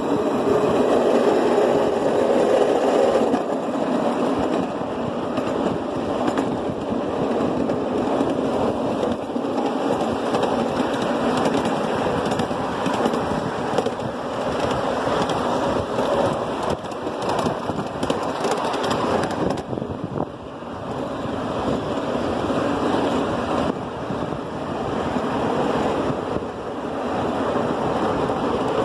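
Continuous rumble and rattle of a small vehicle moving over rough ground, mixed with wind buffeting the microphone.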